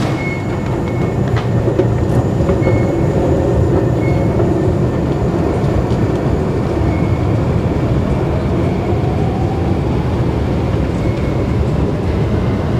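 Singapore MRT train running in the underground station, a loud steady rumble with an electric motor whine that climbs in pitch over several seconds as the train gathers speed.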